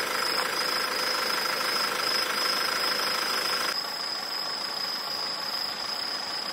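A car engine running close by with a steady hum. About four seconds in it drops to a fainter engine sound. Insects keep up a steady high trill throughout.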